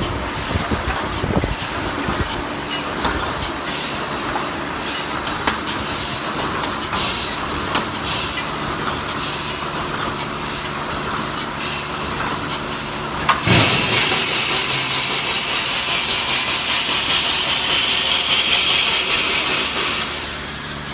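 CNC welded wire mesh panel machine running: a steady mechanical clatter with many sharp clicks as the welding head fires and sparks fly. About two-thirds of the way in comes a sudden loud knock, then a loud steady hiss that dies down near the end.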